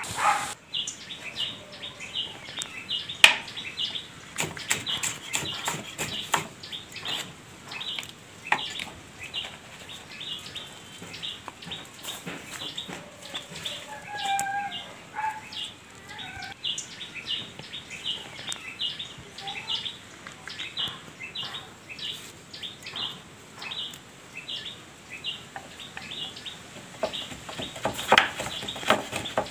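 Birds chirping rapidly and repeatedly throughout, a few short calls among them. Near the end come knife chops on a wooden cutting board.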